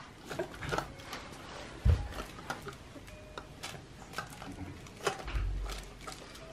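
Plastic stacking-toy rings clicking and clacking as a baby grips and mouths them, with a low thump about two seconds in.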